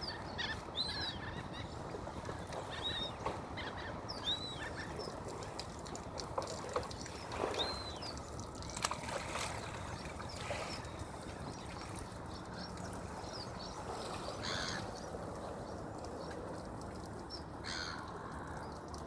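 Outdoor waterside ambience: a steady wash of water and wind noise, with scattered short, high bird chirps and a few brief knocks.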